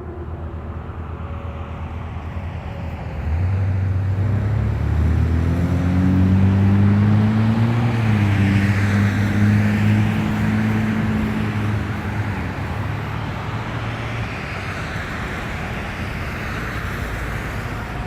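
Street traffic: a motor vehicle's engine rises in pitch as it accelerates past a few seconds in, drops once partway through, then fades away over steady road noise.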